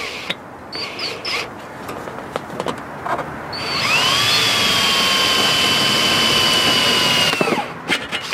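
Power drill boring a hole through aluminum sheet trim: a few short trigger bursts as the bit starts, then a steady whine for about four seconds that rises in pitch as it spins up, cutting off shortly before the end.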